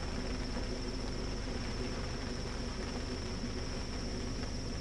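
Steady high-pitched insect chorus, one unbroken trill, over an even hiss and a low steady hum.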